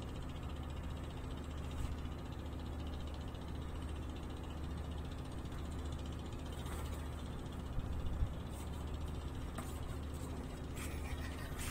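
Steady low hum of a running engine, with a few short clicks and knocks about eight seconds in and a cluster of them near the end.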